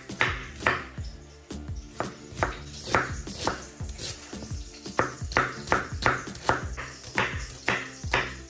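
Background music with sustained notes, over a knife chopping on a cutting board in irregular strokes, about two to three a second.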